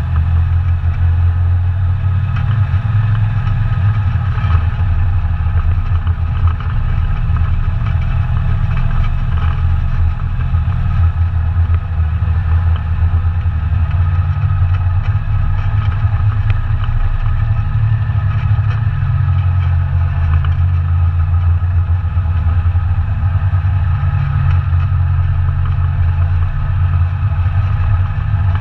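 ATV engine running steadily under way, a loud low drone that holds an even level.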